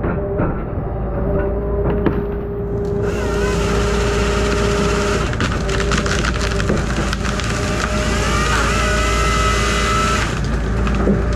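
Grapple saw cutting through a tree, starting about three seconds in and stopping near the end, over the steady running of the carrier machine's engine and hydraulics.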